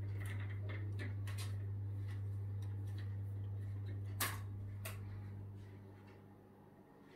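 Venetian blind slats clattering and clicking as the blind is tilted shut: a run of light clicks in the first second and a half, then a sharp click about four seconds in and a smaller one just after. A steady low hum sits underneath and fades near the end.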